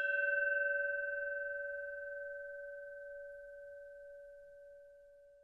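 A meditation bell struck once, ringing out with a clear, sustained tone and a fainter higher overtone, fading slowly over about six seconds.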